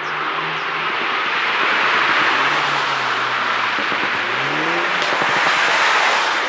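BMW Z4 sDrive20i's 2.0-litre turbocharged four-cylinder, running with the car under way: a loud, steady rushing noise over a low engine note that climbs briefly about four seconds in.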